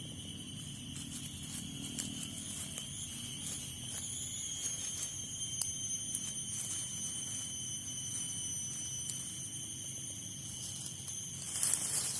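Forest insects droning in a steady, high-pitched chorus that grows louder about four seconds in.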